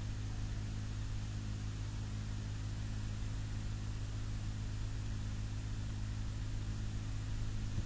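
Steady low hum under an even hiss, unchanging, with no other events: background room or recording noise.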